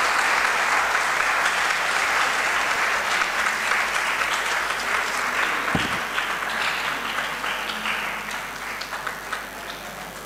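Audience applauding, full and steady for about six seconds, then thinning out into scattered separate claps as it dies away.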